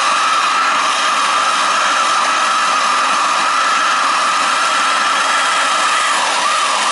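A heat gun blowing steadily on the copper water pipe, an even hiss with a steady whine that wavers near the end.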